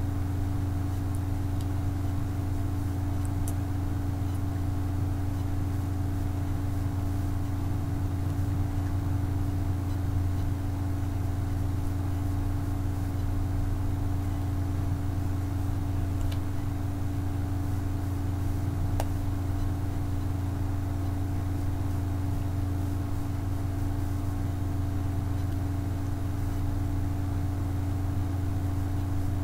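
A steady low hum, unchanging in pitch and level, with no other events standing out.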